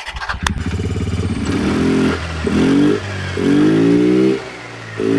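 A TVS Ntorq 125 scooter's single-cylinder four-stroke engine, fitted with an aftermarket air filter in place of the stock airbox, starts up and is then revved in four short throttle blips about a second apart.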